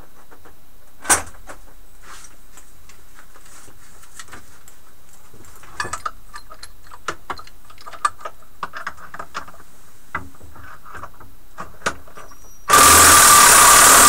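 Scattered light metallic clicks and clinks of steel nuts, washers and bolts being handled and fitted onto a bench vise's mounting bolt. Near the end a loud, steady noise with an even tone in it starts suddenly and runs for about two seconds.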